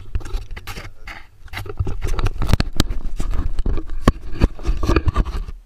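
Handling noise close to the microphone: a rapid string of knocks, clicks and scrapes over a low rumble, busiest in the second half and stopping suddenly near the end.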